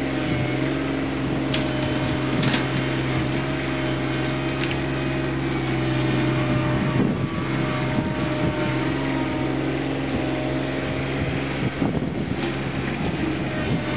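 John Deere 2320 compact tractor's three-cylinder diesel engine running steadily under working load as the front loader pushes a pile of pine limbs, its note dipping briefly about halfway through. A few short snaps of branches sound early on and near the end.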